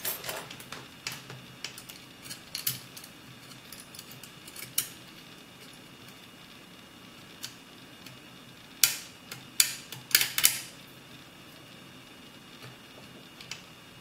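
Homemade metal lock picks clicking and scraping inside the keyhole of a three-lever mortise lock, scattered small ticks with a quick run of louder clicks past the middle.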